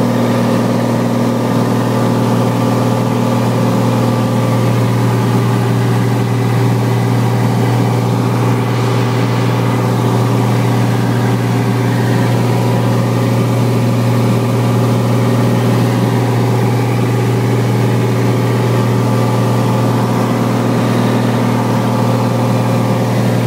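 Cessna light aircraft's engine droning steadily in flight, heard loud from inside the cockpit.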